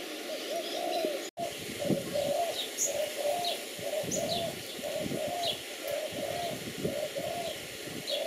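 A dove cooing over and over in short, evenly spaced notes, about two a second, with small birds chirping in thin, high notes above it. The sound drops out for an instant about a second in.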